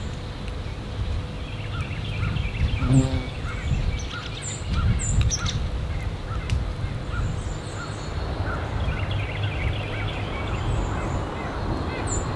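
Wild birds calling: a steady series of short repeated notes, about two a second, with a few very high, thin chips now and then, over a continuous low rumble.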